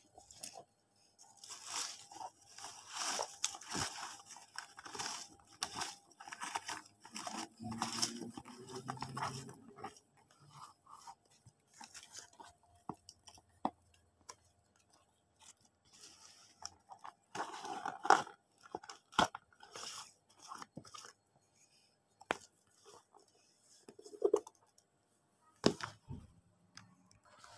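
Shredded cardboard and paper scraps crunching and rustling as they tumble out of a container onto a hard floor, busiest for the first ten seconds. Later come scattered crackles and a few sharp knocks.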